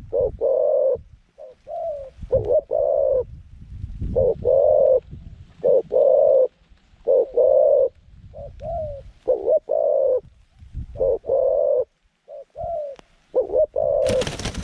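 A caged decoy dove cooing over and over, short coo phrases following one another in groups every second or two. Near the end a loud rustling noise starts.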